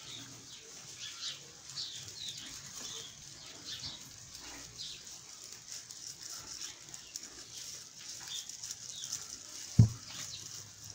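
Rustling of an artificial pine-sprig Christmas decoration being handled and fitted around a glass goblet. A single dull thump about ten seconds in, as the goblet is set down on the table.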